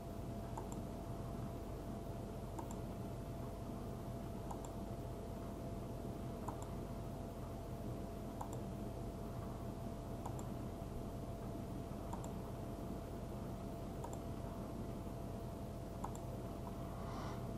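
Computer mouse clicking about once every two seconds, over a steady electrical hum and hiss, with a brief soft noise near the end.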